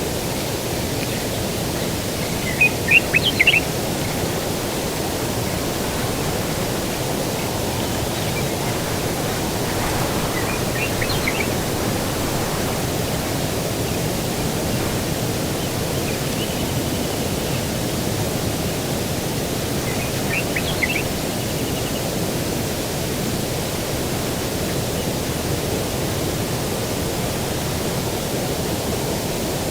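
Outdoor ambience: a steady low rushing noise, with a bird giving short, high chirping phrases four times, the loudest about three seconds in.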